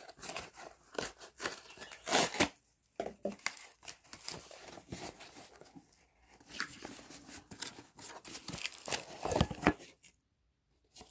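Candle packaging being torn open and crinkled by hand: irregular tearing and rustling, with a short break just before the end.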